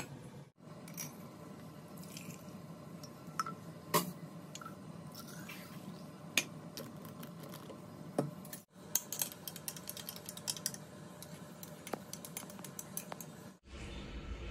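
Light clicks and taps of a glass mug and a plastic baby bottle being handled on a stone countertop, with a quick run of small clicks about two-thirds of the way through, over a low steady hum.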